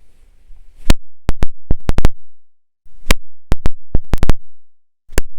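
Electronic intro music made of sharp, clicky percussion hits in a repeating pattern, each burst of about half a dozen quick hits separated by brief silences. It begins about a second in after faint hiss.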